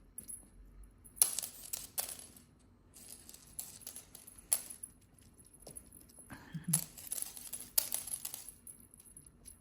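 Cat teaser wand toy rattling and jingling in short, sharp bursts as it is swung and played with, about five louder ones spread through, the first about a second in.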